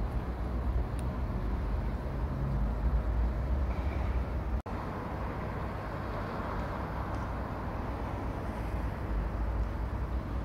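Steady low rumble of road vehicle noise, cutting out for an instant about halfway through.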